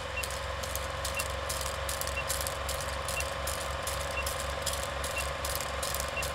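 Film-projector sound effect: a steady mechanical rattle of clicks over a low, even pulsing hum, with a short high beep once a second as a film leader counts down.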